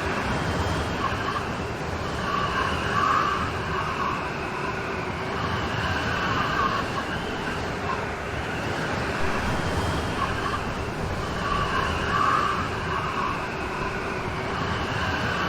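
Steady heavy rain, with a wavering tone that swells and fades every several seconds underneath.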